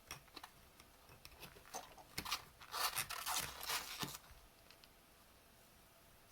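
Needle-nose pliers working the metal plug of a USB cable: small clicks, scrapes and scuffs, bunched together and loudest between about two and four seconds in, then falling quiet.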